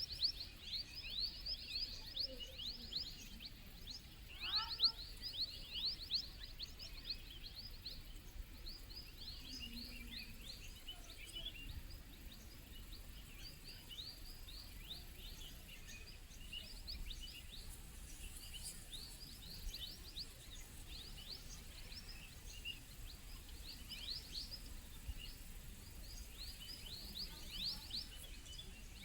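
Forest birds chirping: many short, high notes, each falling in pitch, repeated quickly and overlapping, with a lower gliding call about four seconds in, over a faint low rumble.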